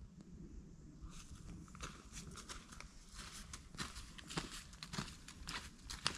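A hiker's footsteps rustling through fallen autumn leaves, starting about a second in as a run of irregular crackly steps.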